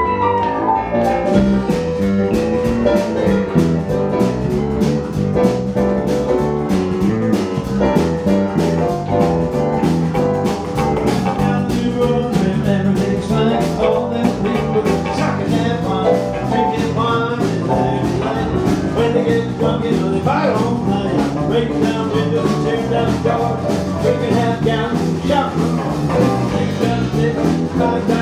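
Live blues band playing with a steady drum beat, with Hammond organ and guitar.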